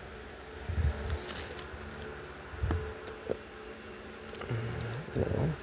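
Small plastic toy bricks being handled and fitted together: a few sharp plastic clicks and dull bumps against the table, over a steady low buzzing hum.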